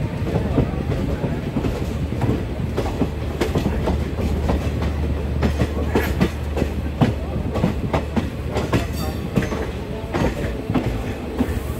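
Passenger coach wheels clattering over rail joints and points at slow speed, heard from the coach's open doorway: a steady low rumble with irregular sharp knocks.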